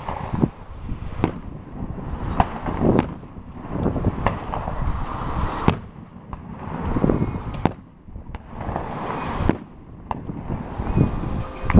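Fireworks going off: a string of separate sharp bangs, some close together, over a noisy background that cuts in and out every second or two.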